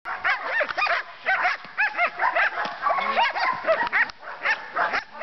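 Dogs barking in a rapid, continuous string of short barks, about three or four a second and sometimes overlapping: the agitated barking of dogs worked against a bite sleeve in protection training.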